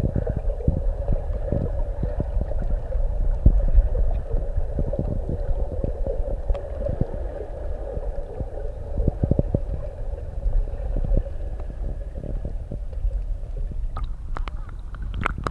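Underwater sound picked up by a submerged camera: a low rumble of moving water with many small knocks and a steady hum. About fourteen seconds in the camera breaks the surface, and sharper splashing follows.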